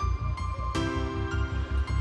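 Background music: held chords that change about three-quarters of a second in, over a steady pulsing bass.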